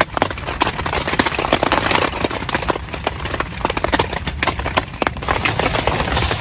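Heavy rain falling on a tent, with many close, irregular drop hits over a steady hiss.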